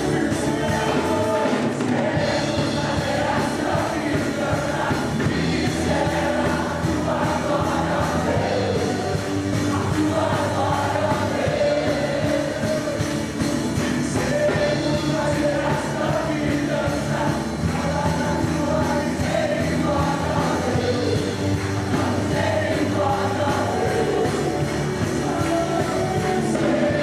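Music: a song with singing over band accompaniment.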